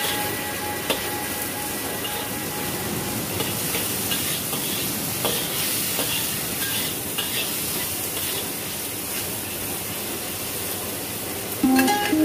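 Onion and tomato sizzling and frying in a hot wok, stirred with a metal spatula that scrapes and clicks against the pan now and then.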